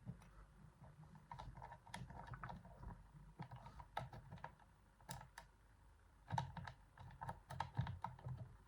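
Faint, irregular small metallic clicks and taps of a homemade pick working the sliders inside a Yuema-style slider lock.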